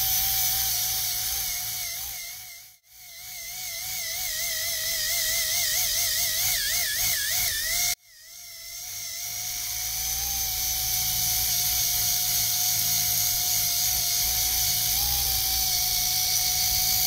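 Small DC gear motors of a homemade RC car running with a steady high whine whose pitch wavers up and down. The whine fades out about three seconds in and back in, breaks off abruptly near eight seconds, then goes on steadier.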